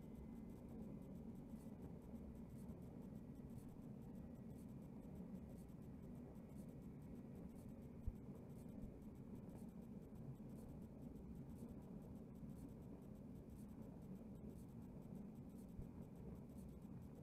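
Faint, steady low rumble of water noise heard through a dashcam's microphone sealed inside a plastic food-storage box underwater, with one sharp click about eight seconds in.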